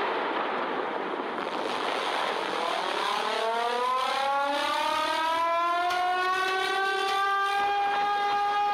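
The noise of a rockslide down a mountain slope gives way to a civil-defence warning siren winding up. From about three seconds in, the siren rises in pitch and then holds a steady tone.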